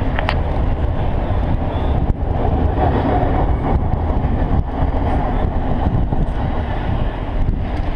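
Freight train of autorack cars rolling past: a steady rumble of steel wheels on the rails, with a few sharp clicks.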